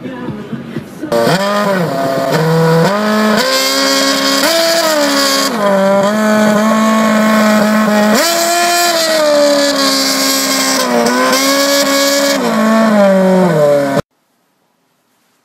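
Formula One car's V8 engine revving hard, its pitch climbing, holding and dropping again several times, then cutting off suddenly near the end.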